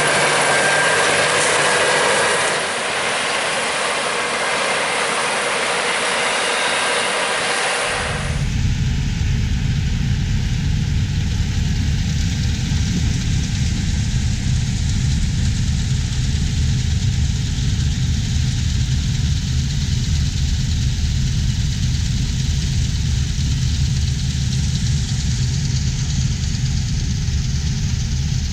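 Heavy farm machinery running: a steady, hissing mechanical din with a few whining tones, then, after an abrupt change about eight seconds in, a low diesel engine rumble.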